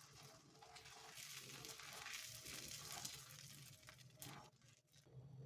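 Near silence: a faint hiss with a few soft ticks, one a little stronger about four seconds in.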